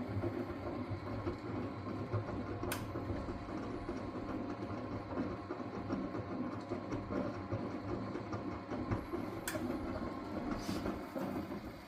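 Miele W423 washing machine running, its motor turning the drum with a steady rumble and rattle that stops shortly before the end. Three sharp clicks come partway through.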